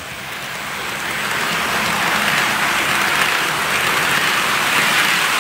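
Bachmann OO gauge Class 47 model diesel locomotive and its tank wagons running along the model railway track, a steady rushing rattle from the motor and wheels on the rails that grows louder over the first two seconds as the train approaches, then holds steady.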